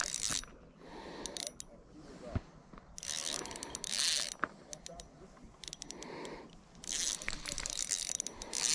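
Spinning reel being cranked in several short bursts, its gears whirring and clicking.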